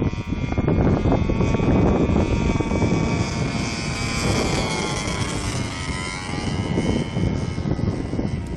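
Radio-controlled Edge 540 model aerobatic plane flying, its propeller and motor giving a steady whine whose pitch falls about halfway through. Wind buffets the microphone throughout.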